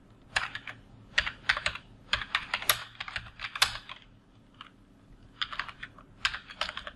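Typing on a computer keyboard: quick runs of keystroke clicks, with a pause of about a second a little past halfway.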